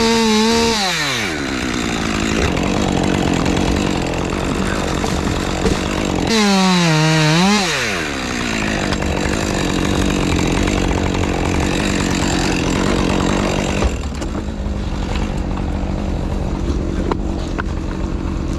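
Two-stroke chainsaw cutting ash wood: it revs high at the start and again about six seconds in, the pitch dropping each time as the saw bites into the cut, and it runs lower from about fourteen seconds in.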